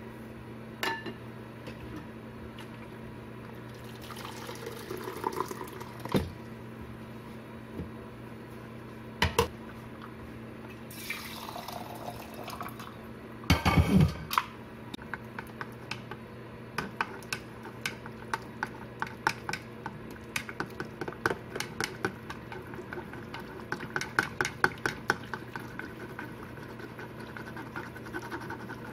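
Boiling water poured into a thermal lunch jar to preheat it, the filling sound rising in pitch, over a steady low hum. A loud clunk about halfway through, then a long run of light clinks of a ladle against a metal pot.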